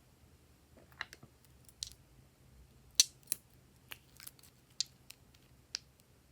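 Glossy slime being handled, giving about ten sharp, crisp clicks and pops at irregular intervals, the loudest about three seconds in.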